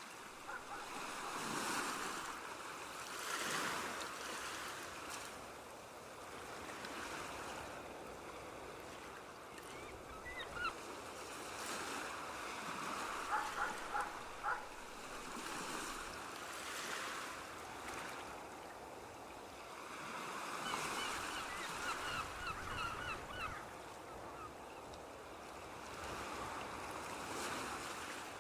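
Waves washing onto a sea shore, the surf swelling and easing every few seconds. Clusters of short, high-pitched calls come in about a third of the way through and again about three quarters of the way through.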